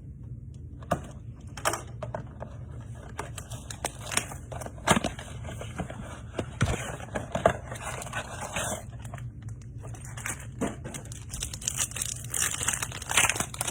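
Trading cards and their plastic wrappers being handled: irregular crinkling with sharp clicks and taps, busiest a little past halfway and again near the end.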